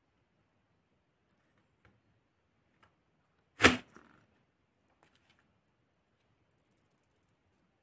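A single sharp plastic snap about three and a half seconds in as plastic shotgun wad parts are pressed together, with a few faint clicks of the parts being handled before and after.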